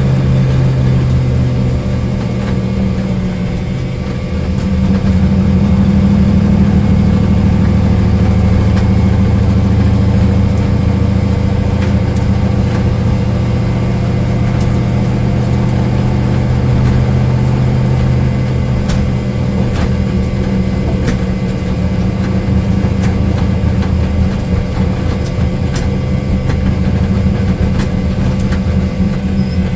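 A Corvette engine running steadily at idle, with the misfire that the video is about.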